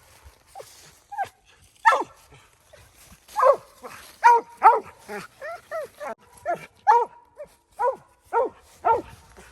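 Mountain cur barking treed at a den tree: a string of short chop barks, a few spaced out at first, then about two a second from a few seconds in.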